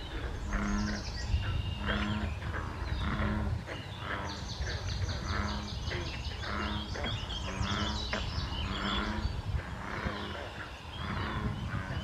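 Frog chorus from a pond: a low croak repeating about once a second, over a dense mix of higher calls.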